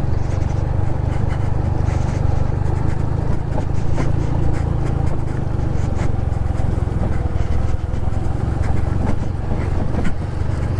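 Honda Pop 110i's small single-cylinder four-stroke engine running steadily while riding a dirt track, with scattered clicks and knocks over the engine drone.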